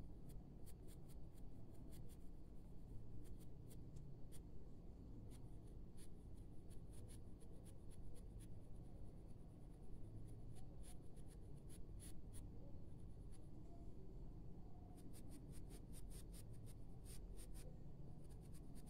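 Grey coloured pencil scratching over drawing paper in runs of quick, short strokes with short pauses between, as feathers are shaded. A faint, steady low hum lies underneath.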